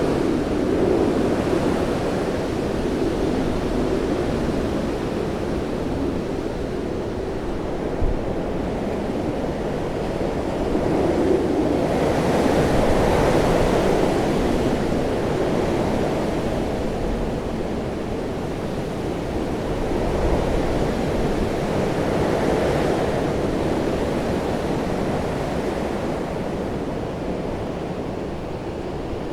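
Hurricane wind blowing hard: a continuous rushing noise that swells and eases in gusts, strongest about twelve seconds in and again a little past twenty seconds. There is one short knock about eight seconds in.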